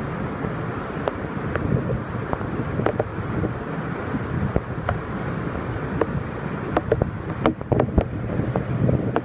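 Minoh Falls' waterfall after a typhoon: a steady rush of falling water. Scattered sharp taps or splashes sound over it, closer together about seven to eight seconds in.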